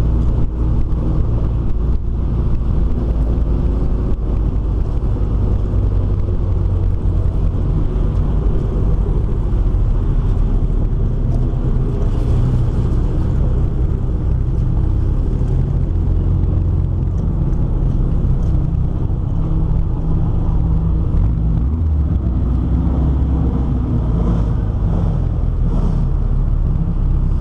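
Nash Metropolitan race car's engine running steadily at low revs, heard from on board the open car as it rolls along, with a low rumble underneath.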